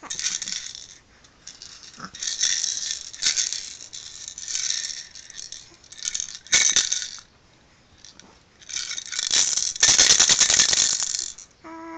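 Small plastic toy maraca shaken by hand, its beads rattling in about five separate bursts. The loudest and longest burst comes about nine to eleven seconds in.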